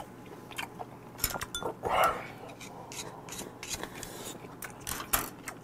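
Eating sounds: a ladle and chopsticks clicking and clinking against the dish, and a slurp of soup broth from the ladle about two seconds in, the loudest sound here.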